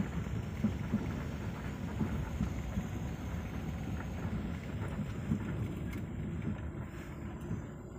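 Car driving slowly over a rough dirt track, heard from inside the cabin: a steady low rumble of engine and tyres, with a few short knocks and rattles from the bumpy road.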